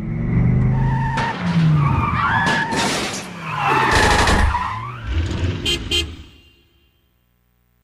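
A loud run of cartoon sound effects: screeching, skidding squeals over a low rumble, broken by several sharp hits, fading out about six seconds in.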